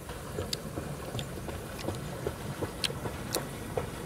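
Eating sounds: scattered sharp clicks and smacks, several a second at irregular spacing, over a low steady rumble.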